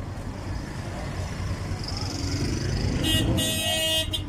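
Busy street traffic with engines running close by, and a vehicle horn sounding one blast of about a second near the end.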